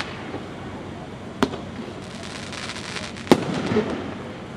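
Consumer firework cake firing: two sharp bangs about two seconds apart, the second louder, with faint crackling between them.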